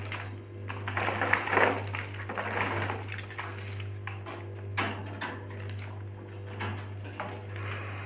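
Rustling and scraping in a wire birdcage as a wet lory moves about on the cage floor after its bath, in spells over the first three seconds, with one sharp knock about five seconds in. A steady low hum runs underneath.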